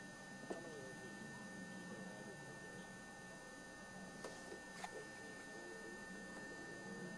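Faint outdoor field sound on an old camcorder recording: a steady electrical hum and a thin high whine from the recorder under distant, indistinct voices, with a couple of sharp clicks a little after the middle.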